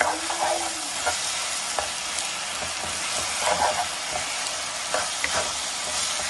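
Chicken and vegetables with a freshly added chow mein sauce sizzling in a wok while a spatula stirs and tosses them, scraping and tapping against the pan every second or so.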